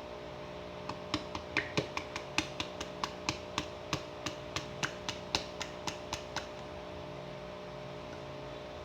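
A rapid run of about twenty sharp clicks, three or four a second, stopping after about five seconds, from working open and emptying the can of condensed milk. A steady low hum runs underneath.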